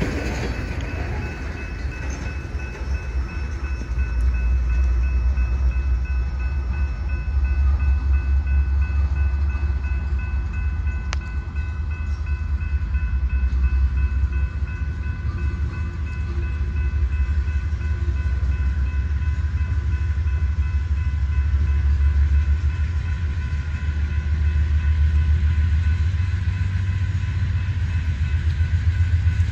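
Diesel locomotive running unseen, a deep steady rumble that swells and eases with a faint high whine over it. One sharp click about eleven seconds in.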